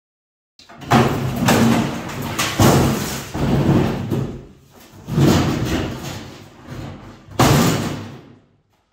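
Crumpled sheet-metal trailer cargo box being wrenched off the trailer and set down on a concrete floor: a series of loud metal bangs and scrapes, about five big ones, the last about seven and a half seconds in.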